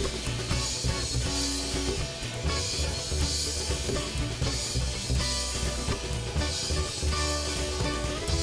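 A rock band playing live in an instrumental break, with no vocals. Drum kit and guitar keep up a steady beat, with cymbal washes recurring every second or two.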